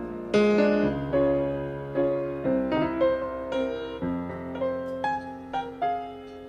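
Slow piano music: single notes struck one after another over held chords, each note fading away after it is struck.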